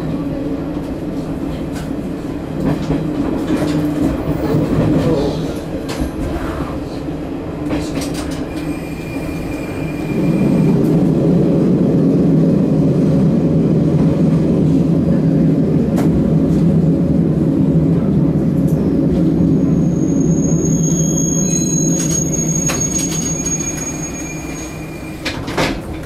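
Sanriku Railway 36-100 series diesel railcar running and slowing into a station, heard from inside: a steady rumble of engine and wheels with scattered clicks over rail joints and points. The rumble grows louder about ten seconds in. A thin high squeal of wheels or brakes sounds about two-thirds of the way through, and the noise eases off as the car comes to a stop near the end.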